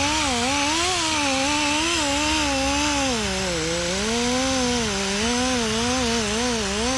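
Handheld power tool cleaning the gasket surface of a Honda Civic cylinder head: a steady grinding hiss over a motor note whose pitch keeps rising and falling, dipping lowest about three and a half seconds in.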